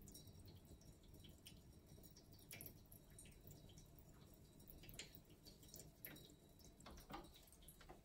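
Faint trickle and irregular drips of a stainless steel pet water fountain, its thin streams of water falling into the bowl.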